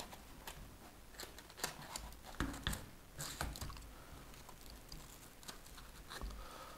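Faint, irregular clicks and rattles of hands handling an RC crawler chassis while fitting its battery pack, busiest in the first half.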